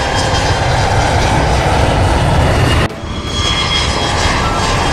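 Airliner engine noise, a steady loud rumble with a hiss above it. About three seconds in it cuts out for an instant, then comes back.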